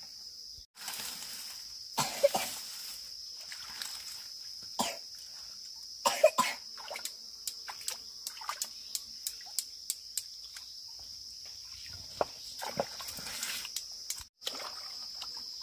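Steady high-pitched chorus of insects, with scattered sharp clicks and a few louder splashing, rustling bursts of hands searching through the water and mud of a shallow stream bed for fish. It breaks off twice for an instant.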